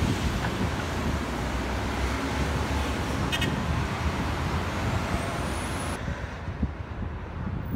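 Steady road traffic noise: cars and buses running along a busy street, a continuous low rumble with a hiss of tyres. The hiss drops away abruptly about six seconds in.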